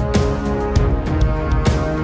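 Background music with held chords and a regular beat.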